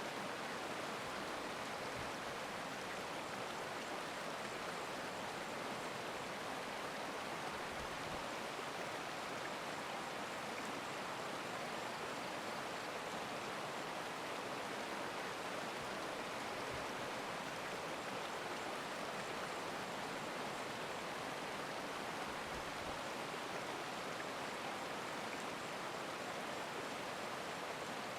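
Steady, even rushing of a flowing stream.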